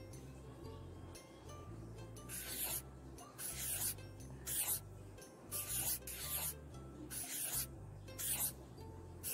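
A series of short scratchy rubbing noises close to the microphone, about one a second, starting a couple of seconds in, over quiet background music.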